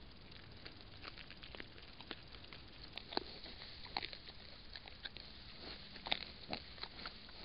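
Wild boar foraging with snouts in dry straw: scattered rustling and sharp crunching clicks from rooting and chewing.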